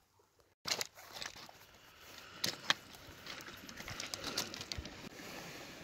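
Rustling and scattered clicks of hands undoing hiking-shoe laces on a pebble beach, with stones clicking underfoot and two sharper clicks about two and a half seconds in.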